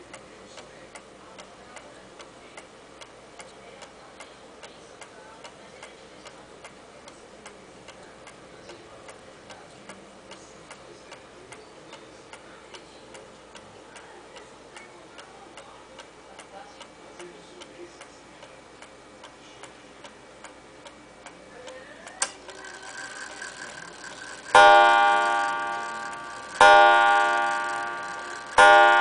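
Antique Gilbert pendulum shelf clock ticking steadily. About three quarters of the way in, its strike train releases with a click and a short whir, and the clock strikes its gong three times, about two seconds apart, each stroke ringing on and fading.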